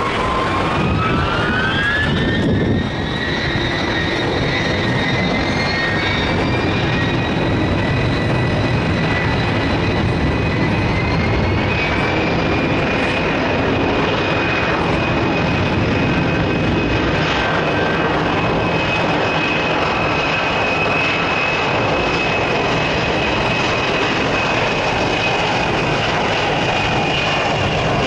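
Ilyushin Il-76-family jet's four D-30KP turbofans spooling up to takeoff power, a whine rising in pitch over the first few seconds and again slightly about twelve seconds in, then holding a steady whine over a loud engine noise as the aircraft rolls down the runway.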